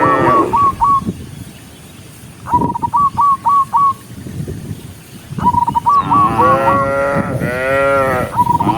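Cows mooing, two long calls in the second half, while a bird repeats a short phrase of one flat note and four quick chirps about every three seconds.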